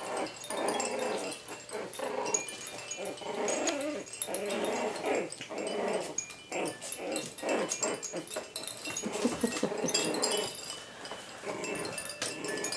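Three-and-a-half-week-old Coton de Tulear puppies vocalising in short repeated bursts as they play-fight, with faint chiming from a hanging toy mobile.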